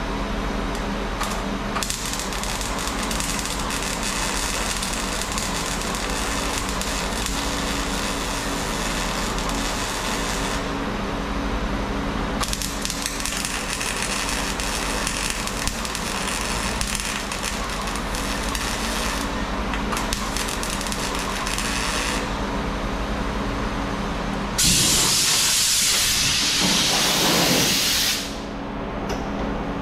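Wire-feed (MIG) welder crackling and hissing as it lays beads along a steel rocker panel, in long runs with short pauses between them. Near the end a louder rushing hiss lasts about three seconds and dies away with a falling pitch.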